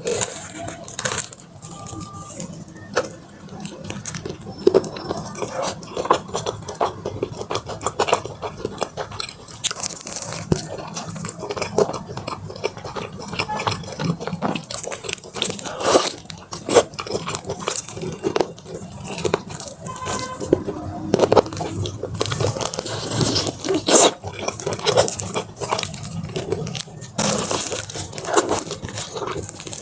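Close-up crunching bites into the crisp coating of Korean fried chicken drumsticks, with chewing and many sharp, irregular crackles.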